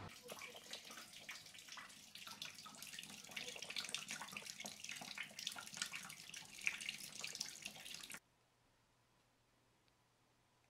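Wort running from a stainless kettle's ball-valve tap and splashing into a plastic bucket, with a crackling spatter. It cuts off abruptly about eight seconds in.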